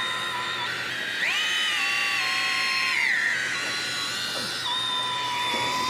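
Electric fishing reel motor whining as it winds line against a heavy fish. Its pitch jumps up about a second in and sinks back down around three seconds in.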